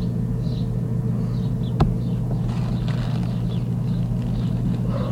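Hot tub pump running with a steady low hum, and a single sharp click about two seconds in.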